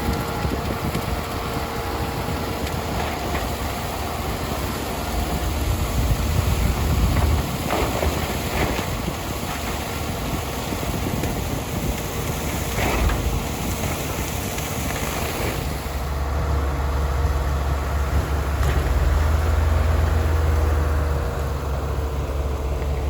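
Diesel tractor running a bale processor that is shredding a partly frozen bale, with a steady engine hum, a thin steady whine and a few short knocks. About two-thirds of the way through, the low hum grows louder and the higher sounds fall away.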